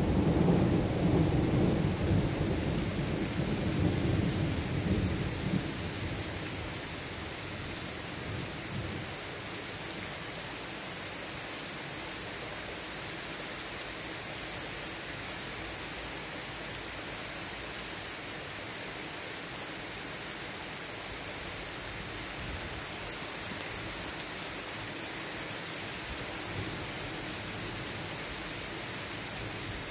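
Thunder rumbling and dying away over the first eight seconds or so, followed by steady rain.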